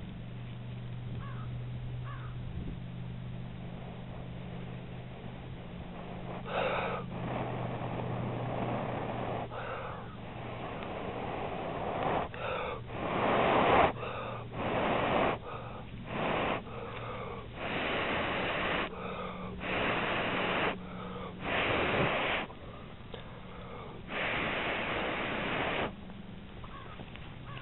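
A person blowing into a tinder bundle of dry grass, leaves and thistle down to bring a hand-drill coal up to flame: about a dozen long, breathy blows, starting about six seconds in and coming in quick succession.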